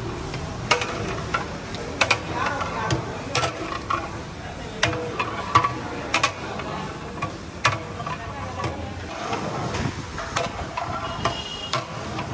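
A long metal stirring rod working through thick nihari in a large steel pot, clinking and knocking against the pot at irregular moments, roughly every second.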